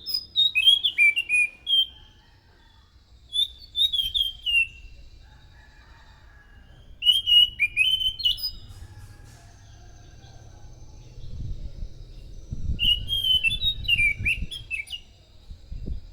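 Anis macan thrush singing in four short phrases of quick, sliding whistled notes, spaced a few seconds apart. A low rumble sits under the last phrase.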